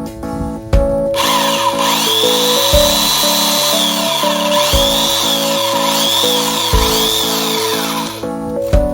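Ryobi CS-295SG electric chainsaw running, starting about a second in and stopping near the end, its whine sagging and recovering several times as it cuts wood. Background music with a steady beat plays throughout.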